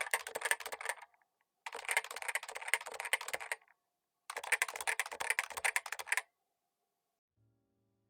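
Topre Realforce RGB TKL keyboard with electrostatic capacitive (Topre) switches being typed on quickly, on a desk mat. There are three runs of rapid keystrokes, each about two seconds long, with short pauses between them.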